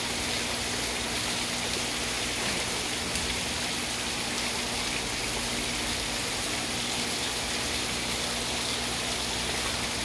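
Small waterfall pouring steadily into a shallow rock-edged garden pond, an even splashing rush of water.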